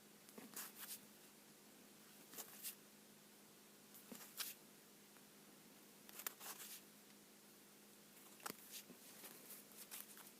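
Trading cards being handled and laid down, faint brief flicks and slides of card stock, often in pairs, about every two seconds.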